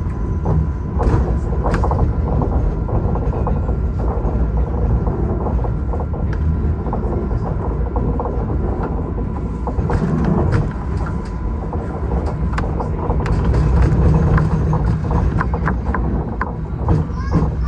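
Ride noise inside an Alstom Citadis X05 light rail tram in motion: a steady low rumble with scattered clicks and rattles, and a faint steady high tone through much of it.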